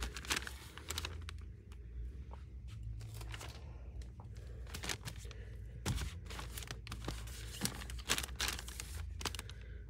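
Plastic diaper packs crinkling and rustling as they are handled and set on a metal store shelf, in many irregular short crackles and light knocks, over a low steady hum.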